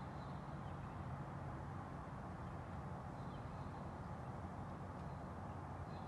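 Distant birds chirping outside, heard through an open window screen as a few faint, brief high chirps over a steady low background rumble.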